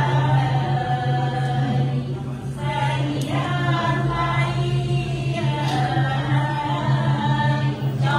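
Music accompanying a Khmer classical dance: a slow sung vocal line wavering over a steady low drone.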